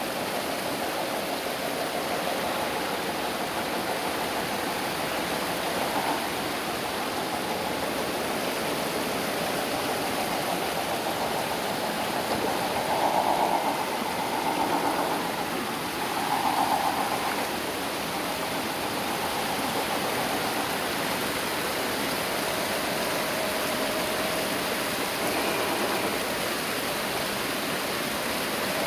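Electric motor and gearbox of a small RC rock crawler whirring. The whir swells briefly several times around the middle, over a steady rushing hiss.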